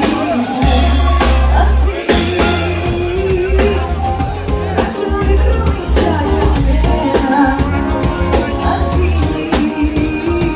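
Live band with drum kit and heavy bass backing a woman singing a Greek pop song into a microphone.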